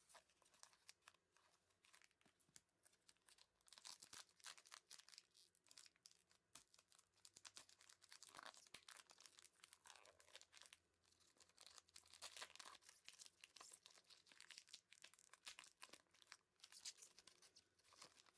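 Faint crinkling and tearing of a foil-lined trading card pack wrapper being torn open and handled, a dense run of crackles that gets busier about four seconds in.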